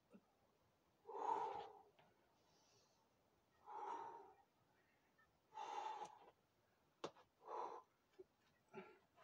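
A boulderer's forceful breaths of effort as he pulls through hard moves: a loud one about a second in, then one about every two seconds, coming quicker and shorter near the end. A single sharp tap a little after halfway.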